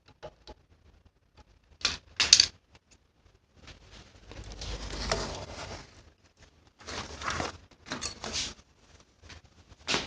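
Irregular clicks and rattles of small hard parts being handled, in several short bursts, with a longer stretch of rattling and scraping in the middle.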